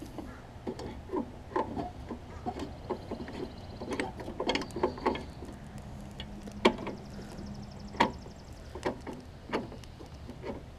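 Self-propel transmission and drive pulley of a Troy-Bilt push mower turned by hand, giving irregular clicks and knocks as the drive catches and slips; the owner takes it for stripped teeth inside the self-propel axle.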